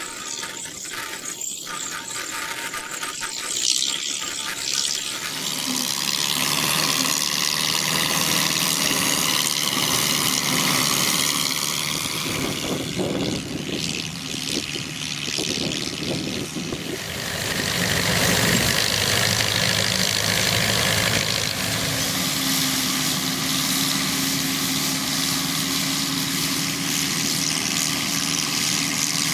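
A 1931 Baldwin Gleaner pull-type combine at work: its Ford Model A engine and threshing machinery run with a steady mechanical din as it picks up a swath, changing in tone a few times.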